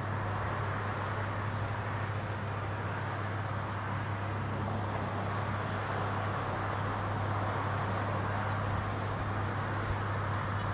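Rice combine harvester running steadily, a continuous engine drone with a low hum and a rushing band above it that stays even throughout.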